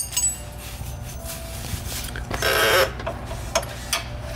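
Hand tools working on the van's rear suspension hardware: a few sharp metallic clinks, with a short, louder rattling scrape a little past halfway.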